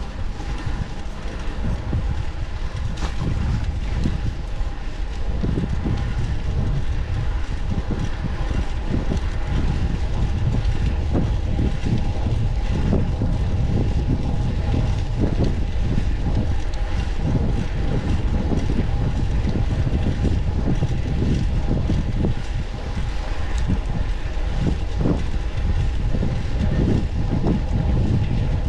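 Wind buffeting the microphone and steady road rumble while riding a fixed-gear bicycle, with a faint steady whine underneath. It gets a little louder over the first several seconds.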